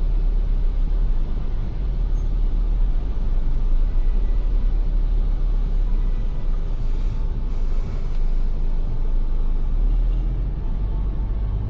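Ford Everest SUV driving, a steady low rumble of engine and road noise heard from inside the cabin.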